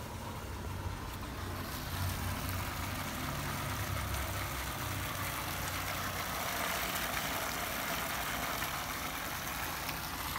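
Water pumped up from a borewell by a submersible pump, gushing out of a vertical PVC outlet pipe and splashing into a plastic barrel: a steady rushing noise.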